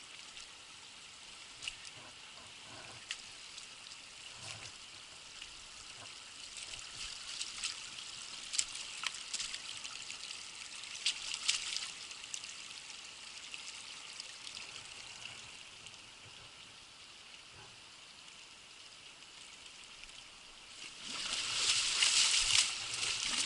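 Shallow stream trickling, a steady hiss of running water with small crackles and splashes. About 21 seconds in it turns into a louder rush.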